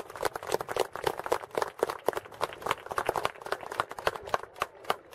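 Spectators clapping: a few nearby pairs of hands in quick, irregular claps that stop near the end.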